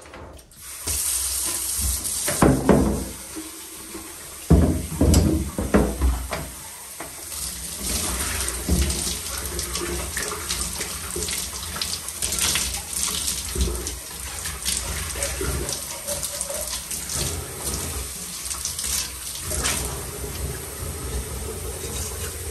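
Hand-held shower running, water spraying and splashing into a bathtub, with a few knocks and bumps of plastic containers being handled in the first several seconds.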